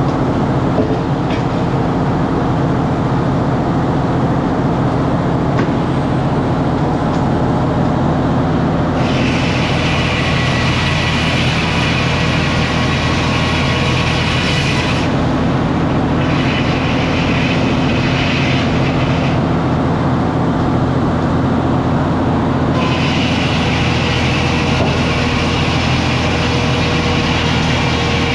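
Sawmill running with a steady loud engine drone. A higher hiss joins about nine seconds in, breaks off twice in the middle and comes back for the last few seconds.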